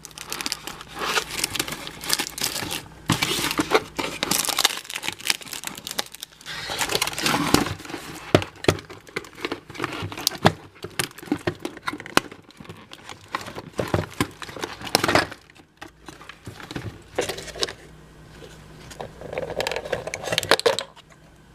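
Toy packaging being handled and opened: plastic and cardboard crinkling and crumpling, with some tearing and scattered small clicks and knocks.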